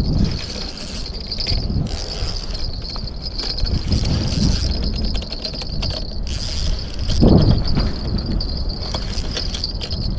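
Spinning reel clicking and being worked as a fish pulls on a bent rod, with wind rumbling on the microphone.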